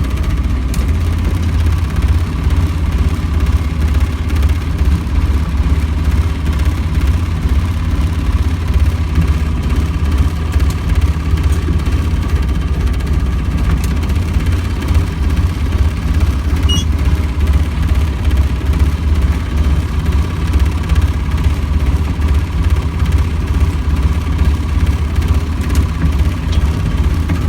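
Boat engine running steadily at idle, a constant low hum.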